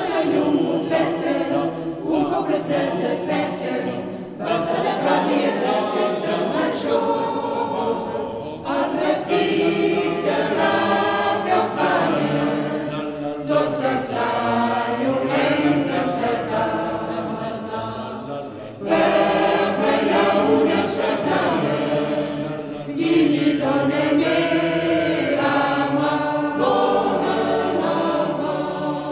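A choir singing, many voices together, in phrases a few seconds long.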